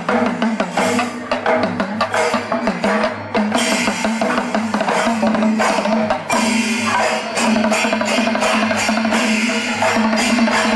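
Percussion-heavy music with fast, dense drumming over a steady low drone. The rhythm and texture change about six seconds in.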